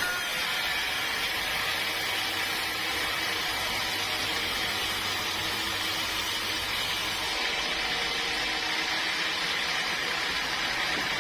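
Sawmill machinery running steadily, a continuous mechanical noise with a hiss-like band, easing slightly in its highest frequencies about seven seconds in.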